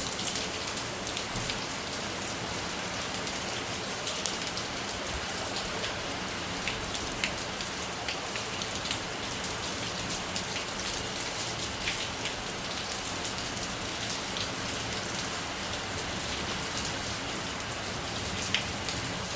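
Heavy rain falling steadily, a dense even hiss with scattered sharper drop clicks now and then.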